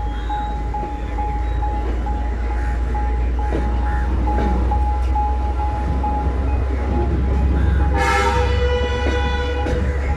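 Low steady rumble of a train, with a steady high tone pulsing several times a second. About eight seconds in, a locomotive horn sounds for about two seconds.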